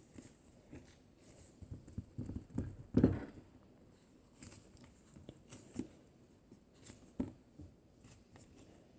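Hands squishing and poking a mousse slime: scattered soft squishes and small clicks, with one louder squish about three seconds in.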